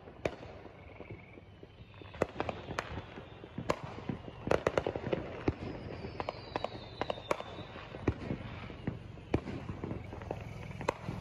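Fireworks and firecrackers going off in scattered sharp pops and bangs, with a dense cluster of pops about four and a half seconds in. A whistling firework gives a falling whistle a little past the middle.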